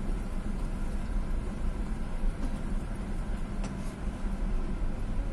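Car cabin noise as the car drives slowly: a steady low engine and tyre rumble heard from inside the car.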